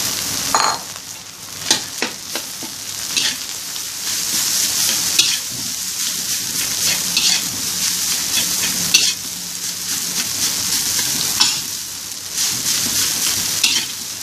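Rice stir-frying in a wok: a steady sizzle, with the spatula scraping and knocking against the wok at irregular moments as the rice is stirred and turned. The sizzle dips about a second in and picks up again a few seconds later.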